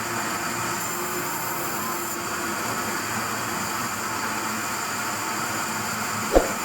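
Sawmill machinery running steadily, with a single sharp knock near the end.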